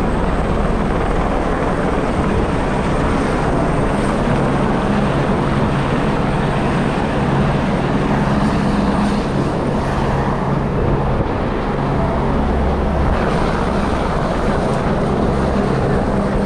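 Wind buffeting a GoPro's microphone while running, a loud steady rumbling noise with no clear tones or beats.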